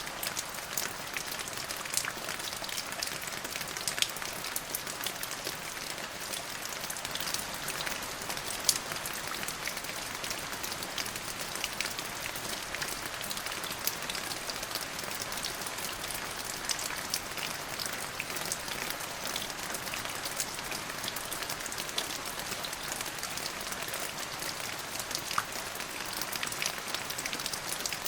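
Steady rain falling, a constant hiss with many individual drops ticking sharply close by. No thunder is heard.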